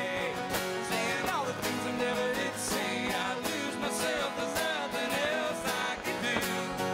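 Live acoustic country music: two acoustic guitars strumming with a fiddle playing over them.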